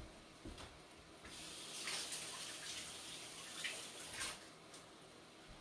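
Water running from a tap while hands are rinsed under it, starting about a second in and shut off after about three seconds.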